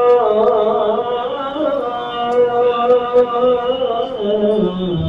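Devotional chanting: a single voice holding long, wavering notes that slide from one pitch to the next with barely a break.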